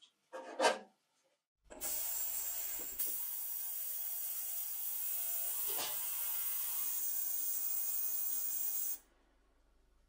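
Digital ultrasonic cleaner running: a steady high hiss from the cavitating water bath that starts about two seconds in and cuts off suddenly near the end as the timer runs out. A short clatter of the wire basket going into the tank comes just before it, and a single click sounds partway through.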